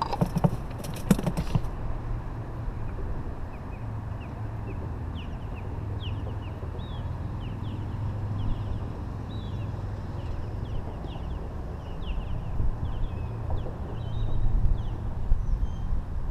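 Wild birds chirping, many short quick calls one after another, over a steady low rumble of wind. A few sharp knocks sound in the first second or two.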